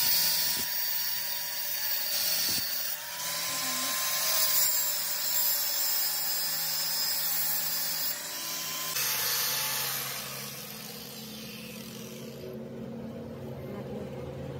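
Angle grinder with a thin cut-off disc cutting into a steel chain sprocket: a high motor whine over the hiss of grinding, the pitch wavering as the disc bites. About nine seconds in the cutting stops and the whine winds down, leaving a low hum.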